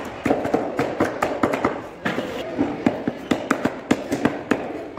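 Butcher's cleaver chopping chicken on a wooden chopping block: rapid, irregular chops, several a second.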